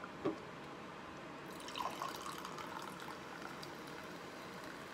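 Fizzy canned chuhai poured from an aluminium can into a plastic cup: a faint, steady fizzing pour that starts about a second and a half in.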